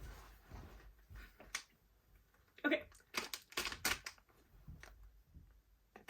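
Blind bag packaging being handled: a string of short crinkles and clicks from the wrapper, coming thicker in the second half.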